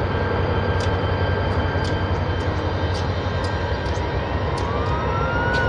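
Diesel locomotive engine running with a steady low rumble as the unit rolls slowly along yard track, with light clicks scattered through it. Near the end comes a whine that rises and then falls.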